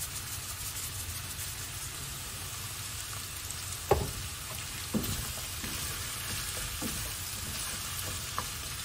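Sliced onions and carrots sizzling steadily in a frying pan, with a few sharp knocks against the pan, the loudest about four seconds in. Near the end a spatula turns the vegetables.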